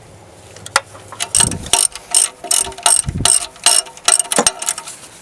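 Socket-wrench ratchet clicking in about eight quick runs, two or three a second, starting about a second and a half in, as a nut on a stud is worked loose.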